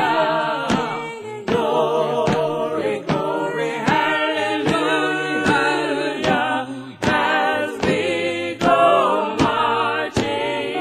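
A choir singing a cappella, with a sharp steady beat a little more than once a second.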